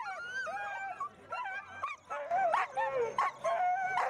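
Many sled dogs howling, yipping and whining together, several wavering high calls overlapping at once with sharp yelps among them.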